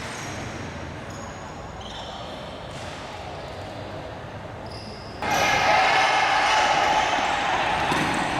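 Indoor futsal game: the ball bouncing and short squeaks on the court against hall crowd noise. About five seconds in, the crowd suddenly gets much louder.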